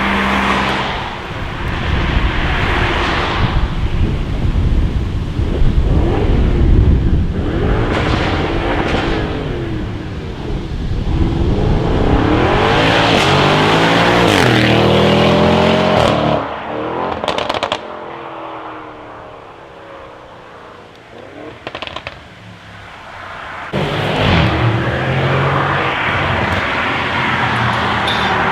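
Audi RS6 C7's twin-turbo 4.0 V8 through a straight-piped Milltek exhaust, revving repeatedly with the pitch rising and falling. A quick series of sharp crackles and pops comes about two-thirds of the way through, then it drops quieter for a few seconds before revving loudly again near the end.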